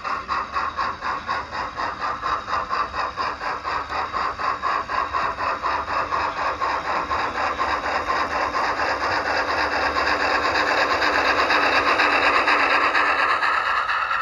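Model train running on a layout: a fast, even rhythmic clatter of about five pulses a second that builds louder as it nears and then eases off near the end.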